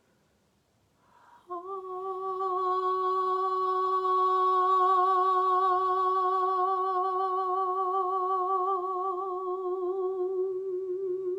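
A sustained sound-healing tone that begins about a second and a half in and is held steadily, with a slow wavering in pitch and a shimmer of high overtones.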